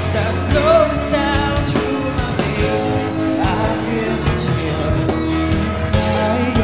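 A man singing into a microphone over instrumental backing music.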